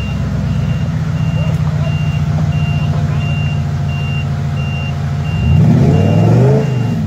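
Off-road 4x4's engine running at a steady note, then revving up and back down near the end. A high electronic beep repeats at an even pace, about three beeps every two seconds.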